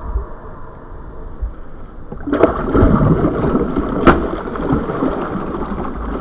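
Water sloshing quietly around a hand holding a large flathead catfish, then about two seconds in a sudden burst of loud splashing as the released fish thrashes its tail and swims off, with two sharp slaps among it.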